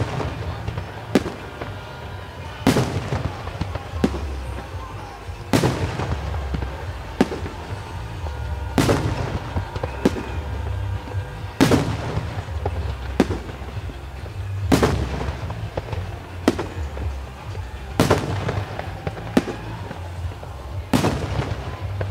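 Aerial firework shells bursting one after another, a sharp bang about every one and a half seconds, each trailing off in a rolling echo, over a steady low rumble.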